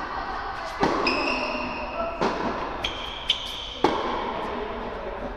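A tennis rally on an indoor hard court: the ball is struck by rackets and bounces, several sharp hits that echo in the hall, the loudest near the end. Shoes squeak on the court between the hits.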